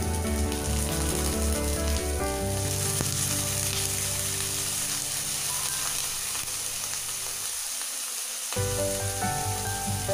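Potato sticks frying in hot oil in a kadai: a steady sizzle, the raw potatoes just added to the oil for crisp aloo bhaji.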